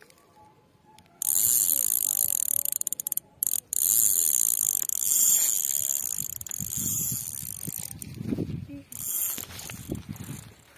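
Spinning reel's drag ratchet clicking fast and continuously as a hooked fish pulls line off the rod lying on the bank, starting suddenly about a second in and running for several seconds with a brief break. Lower knocks and rustling follow as the rod is taken up.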